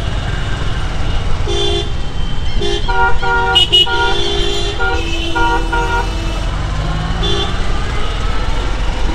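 Vehicle horns honking in city traffic: a string of short toots at two or more different pitches, thickest in the middle, over the steady low rumble of a motorcycle riding along.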